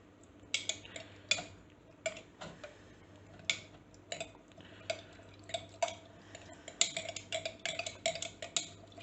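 A utensil clinking and tapping against the side of a bowl while chopped chillies and garlic are stirred into vinegar: irregular sharp clinks, each with a short ring, coming faster and in clusters over the last couple of seconds.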